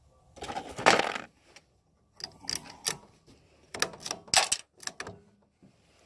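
Metallic clicks and clacks of a Savage Mark II .22 LR bolt-action rifle being handled and loaded: a burst of clatter about a second in, then a run of sharp single clicks.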